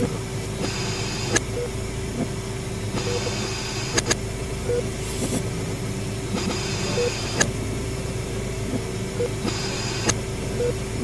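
Horror hospital ambience: a steady low mechanical hum with a held tone. It is broken by a few sharp clicks, short blips at irregular moments, and patches of hiss about a second long that return every two to three seconds.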